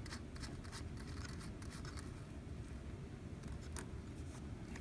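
Faint small clicks and scratching of a nut and lock washer being spun off a threaded antenna bulkhead connector by hand, over steady low room noise.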